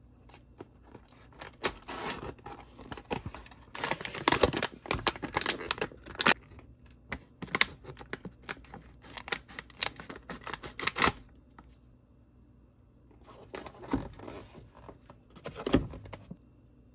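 Paper and cardboard packaging being handled: a dense run of crinkling, ripping and crackling as a cardboard box is opened and its paper inner bag is worked open and cut with scissors. After a short pause comes a shorter burst of rustling and clicks as a pulp egg carton is opened.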